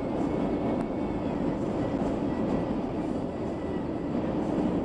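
Steady rumble of a moving vehicle heard from inside its cab: engine and road noise with no breaks.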